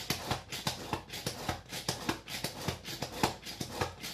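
Plunger-type manual food chopper pumped by hand, its blades chopping onion, garlic, tomato and chilies in a plastic bowl: quick, even clacking strokes at about five a second.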